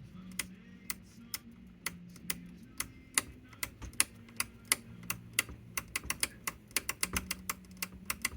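The power switch of an Arvin 30R58 table radio being clicked on and off over and over, many sharp irregular clicks that come faster near the end, as WD-40 works into a gummed-up switch; by the end the switch sounds much more positive. A faint steady low hum lies underneath.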